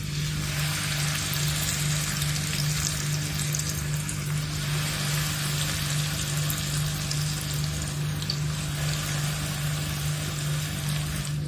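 Kunafa-wrapped chicken strips deep-frying in hot oil: a dense, steady sizzle that starts suddenly as the first strip goes into the oil.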